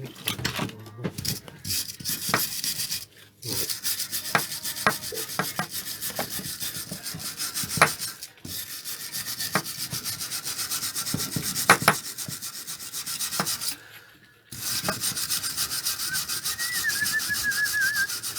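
Wire brush scrubbing rust off the mower engine's metal in quick back-and-forth strokes, stopping briefly about 3, 8 and 14 seconds in. Someone whistles a tune near the end.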